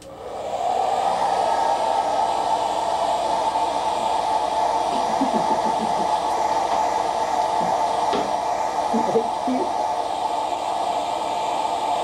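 Hand-held blow dryer switched on, coming up to speed within about half a second, then running steadily with an even whooshing hum.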